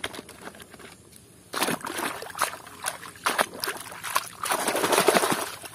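Water splashing and sloshing as a plastic toy vehicle is swished by hand through foamy, muddy water, with light plastic clatter. It starts about a second and a half in and grows louder over the last second or so.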